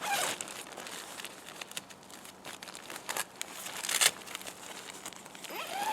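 Polyurethane-coated tent fabric rustling and crinkling as the tent poles are fed through the sleeves, with a few sharper crackles.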